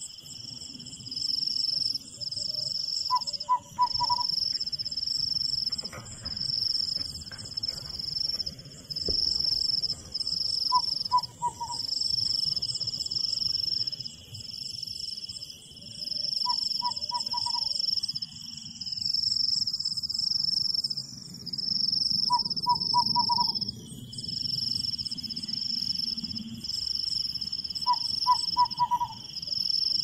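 Crickets chirping in regular high pulses about once a second, over a second insect's continuous trill that stops for a few seconds midway. About every six seconds, a short call of three or four quick notes from some animal or bird cuts in, all over a low rushing background.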